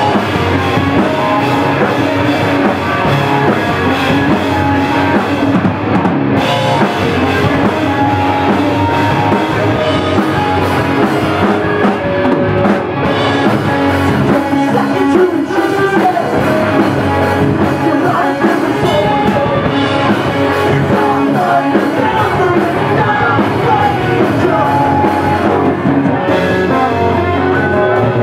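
A pop punk band playing: electric guitars, a drum kit and a male singer, steady and loud throughout.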